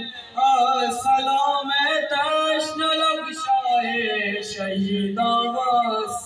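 A man reciting a noha, the Urdu lament for Imam Hussain, in a solo melodic chanting voice with long held, wavering notes.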